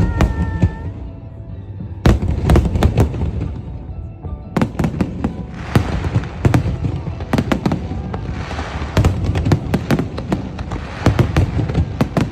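Aerial fireworks bursting in quick succession: many sharp bangs over a deep rumble, with two stretches of dense crackling around the middle.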